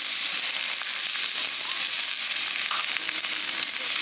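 Raw meat sizzling steadily in a frying pan over a portable gas stove burner, a constant high hiss of frying.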